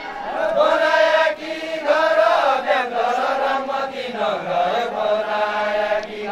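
Men's voices chanting a Deuda folk song together in long drawn-out notes that slide up and down in pitch, with short breaks between phrases.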